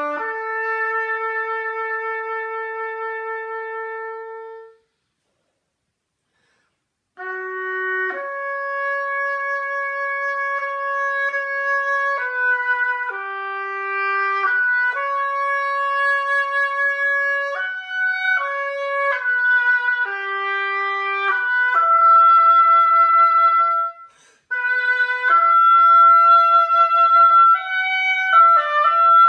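Solo oboe playing: a long held note that fades out, a pause of about two seconds, then a slow melody of sustained notes, with a brief break a few seconds before the end.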